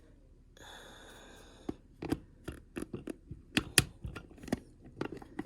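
A stiff plastic sign scraping along for about a second, then a run of sharp clicks and taps as it is worked into the slot at the back of a Scentsy wax warmer.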